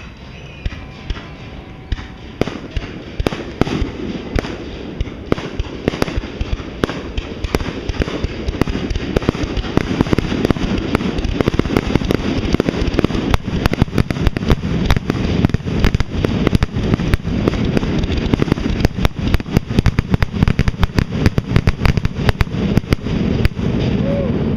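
Fireworks grand finale: aerial shells bursting in rapid, overlapping bangs that grow denser and louder, building to an almost continuous barrage.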